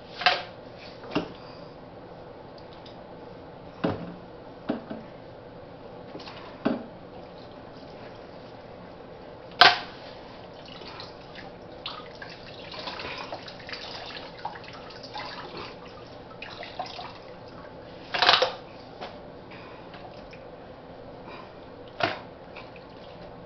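Meltwater and ice from a defrosting chest freezer: scattered single drips and clunks, about eight of them, with a softer, busier patch of splashing in the middle.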